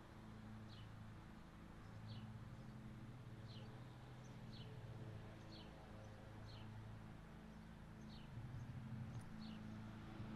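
A bird giving a short, falling chirp about once a second, faint, over a low background hum.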